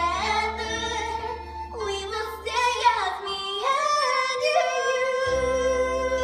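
A musical-theatre song: a single voice sings a bending melody over instrumental accompaniment, then holds one long note from about two-thirds of the way in.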